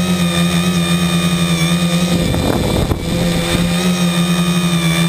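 V-tail tricopter's electric motors and propellers running in flight, a steady hum with a high whine above it, heard loud and close from a camera on the craft. The tone turns rougher for under a second midway, then settles back.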